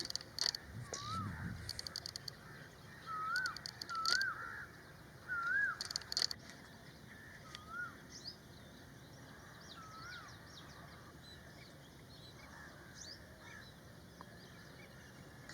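Wild birds calling. A short whistled note that rises and falls repeats about six times, and harsh, rapidly pulsing chattering calls come in clusters during the first six seconds, then die away.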